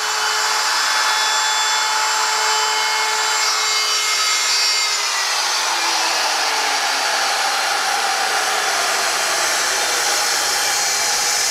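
Handheld router running at full speed, cutting a profile along the edge of a wooden board, a high whine over a steady hiss. About five seconds in the whine starts to slide down in pitch while the hiss carries on.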